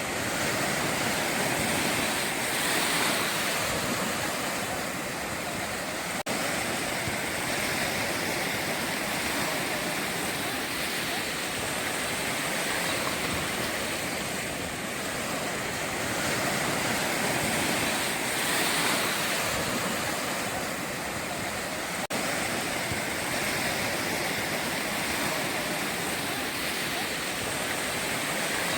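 Atlantic ocean surf breaking on a beach: a continuous wash of waves that swells louder and eases off every few seconds.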